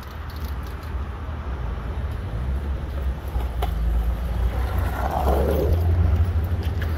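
Skateboard wheels rolling on asphalt with a steady low rumble that grows louder as the board comes closer. There is a single sharp click about three and a half seconds in, and a short swell of grittier noise a little after five seconds.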